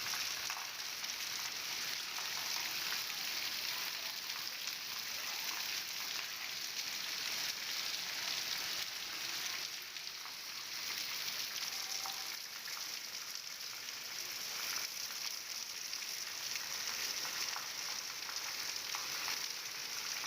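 Heavy rain falling steadily, an even hiss with fine scattered drop ticks, dipping slightly about ten seconds in.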